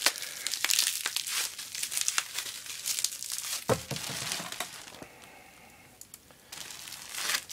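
Plastic zip-top bag and bubble wrap crinkling as they are handled, in irregular bursts; it eases off for a second or so near the end, then crinkles again.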